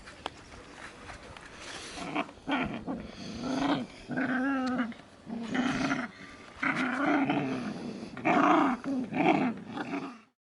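Skye Terrier puppies growling: a run of short and longer growls, some with a wavering pitch, starting about two seconds in and cutting off suddenly near the end.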